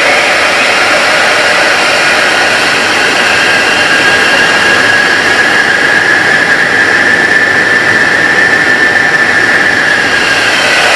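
Handley Page Victor's Rolls-Royce Conway jet engines running steadily during a ground engine run, heard inside the cockpit. A loud, even rush carries a high whine that dips slightly in pitch near the end.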